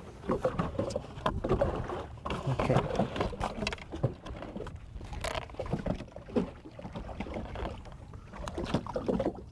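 Irregular light knocks, clicks and rustles of fishing tackle being handled on a boat: a clip and lead weight being fastened to a foam float and the trotline paid out.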